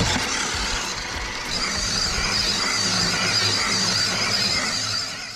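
The small electric motor and gears of a WPL D42 1/10 RC van running as it drives, over the hiss of tyres on the ground. A steady high whine sets in about a second and a half in.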